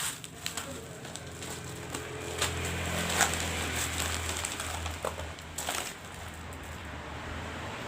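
Packaging rustling and crinkling as a parcel is handled and opened, with a few sharp clicks and a low hum in the middle.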